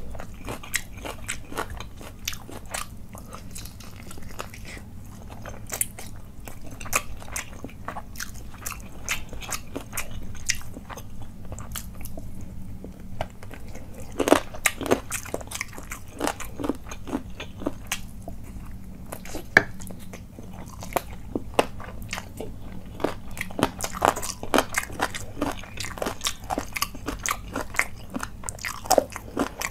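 Chewing and biting of chicken curry with rice eaten by hand: a steady run of irregular wet clicks and crunches.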